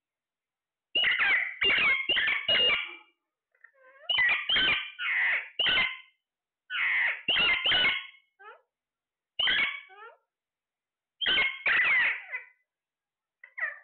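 Parrot squawking in short repeated calls, in clusters of two to four every couple of seconds, with silence between the clusters.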